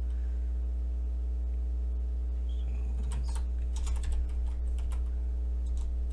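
Computer keyboard keys clicking in a quick run of typing from about three seconds in, with a few more keystrokes near the end. A steady low electrical hum runs underneath.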